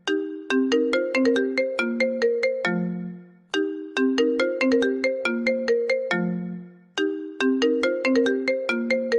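iPhone ringtone playing on a loop: a short melody of bright struck notes that repeats about every three and a half seconds, each pass ending on a lower, longer note.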